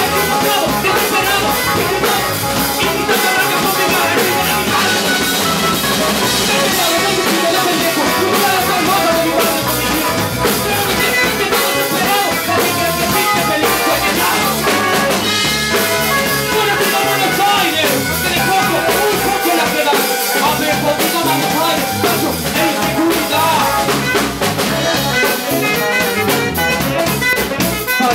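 Live jazz-funk band playing an instrumental stretch of the song, loud and steady: drum kit, saxophone and electric guitar.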